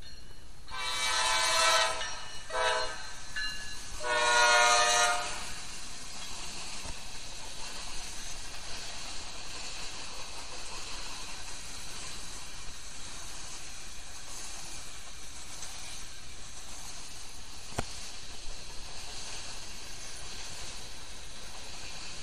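Norfolk Southern freight locomotive air horn sounding three times, a long blast, a short one and a long one, then the train's freight cars rolling past with steady wheel-on-rail noise. A single sharp click comes near the end.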